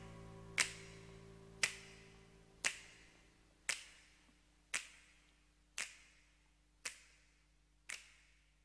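Finger snaps keeping time, about one a second, over the last fading chord of a recorded pop song's ending.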